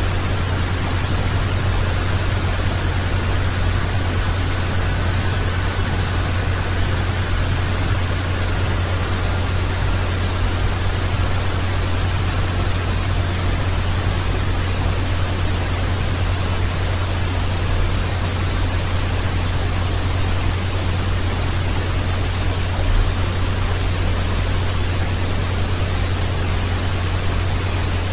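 Steady hiss with a strong low electrical hum, the recording chain's own noise with no other sound. A faint high tone fades out about halfway through.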